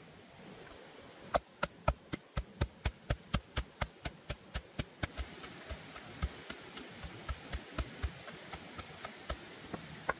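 A knife chopping on a wooden cutting board: a steady run of sharp strikes, about four a second, starting about a second in and growing lighter and slightly slower after the halfway point.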